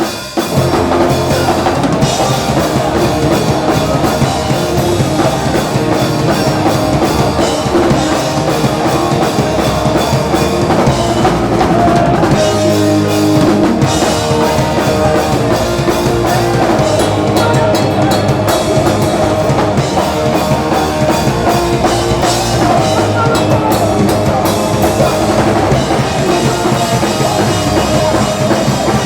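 Live rock band playing loud and fast, with the drum kit and its bass drum out front. The band comes back in a moment after a brief break, then plays on without letting up.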